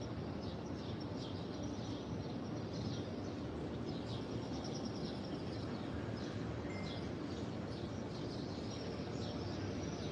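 Many small birds chirping in a continuous flurry of short, high calls over a steady low background hum.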